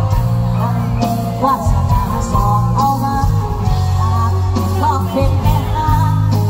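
Live Thai band music: a wavering melody line over a heavy bass and drum beat.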